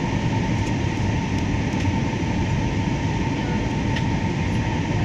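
Airliner cabin noise in flight on approach: a steady rumble of engines and airflow with a faint steady whine.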